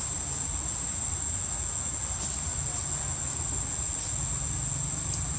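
A steady, high-pitched insect drone runs unbroken over a low, even rumble, with a few faint ticks.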